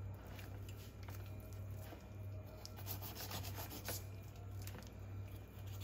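Knife slicing and scraping through raw tuna flesh along the backbone during filleting: soft, irregular rubbing strokes, over a low steady hum.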